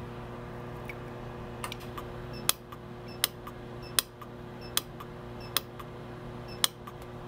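Lampert PUK 5 pulse arc welder firing single pulses, a sharp click about every three quarters of a second from about two seconds in, each pulse melting silver welding wire into a hole in thin silver sheet. Under it, the steady hum of a dust collector running as a fume extractor.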